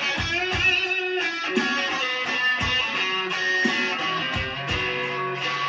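Electric guitar, a Stratocaster-style solid body, playing a slow blues lead with bent notes and vibrato. Beneath it run a slow beat of low thumps and held bass notes.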